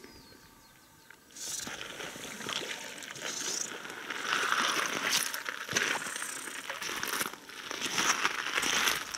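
A hooked fish splashing and thrashing at the water surface as it is played in close, with crackling rustle over it. The sound starts about a second and a half in and comes in irregular surges.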